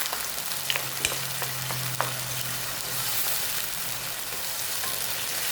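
Chicken pieces sizzling in a pan of hot oil with a little water added, with a few light clicks of a utensil against the pan.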